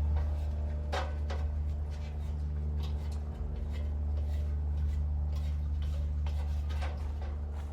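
A steady low hum of several even tones, with scattered light clicks and knocks over it, the clearest about a second in and near the end.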